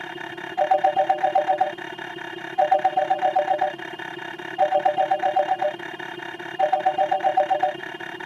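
Telephone-ring sound effect: five rings of a fast two-tone trill, each about a second long, one every two seconds, over a faint steady hum.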